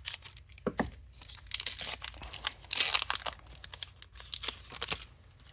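Foil wrapper of a Pokémon card booster pack being torn open and crinkled in the hands, a run of sharp crackles and short tearing rasps that thins out near the end.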